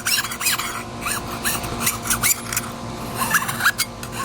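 Chemically softened paint being scraped off a BMX bike's metal frame: quick rasping strokes with many short squeaks.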